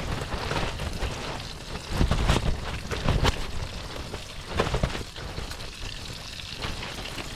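Gusts of wind buffeting the microphone in low rumbling surges, about two, three and five seconds in, over a steady hiss of rain and burgers sizzling in the frying pan.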